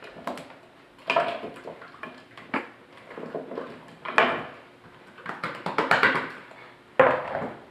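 Thick, lumpy cake mixture scraped and plopping out of a plastic mixing bowl into a metal bundt pan, with knocks of the bowl and utensil against the pan. The sound comes in irregular bursts, with the sharpest knocks about four seconds in and again near the end.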